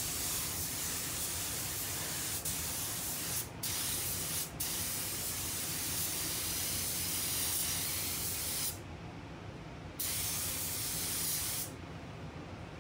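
Pneumatic paint spray gun hissing as it sprays clear coat in long passes. The trigger is let off twice, briefly, around three and a half and four and a half seconds in. The spray pauses for about a second near the nine-second mark and stops near the end, leaving a quieter steady hiss of moving air.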